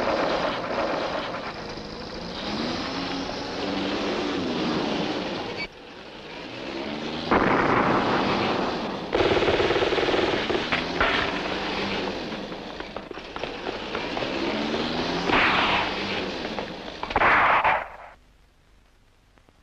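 Heavy gunfire with explosions: a dense, continuous run of shots and blasts from a war film's soundtrack, cutting off suddenly near the end.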